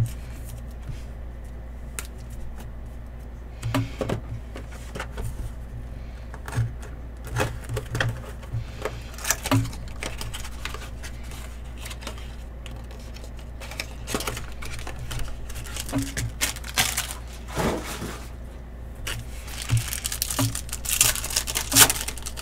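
Trading cards being handled and flicked through, giving scattered light clicks and rustles over a low steady hum. Near the end comes a dense run of crinkling and tearing as a foil card pack is handled and opened.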